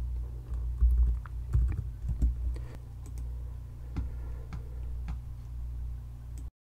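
Typing on a computer keyboard: irregular keystroke clicks over a steady low hum, cutting off suddenly near the end.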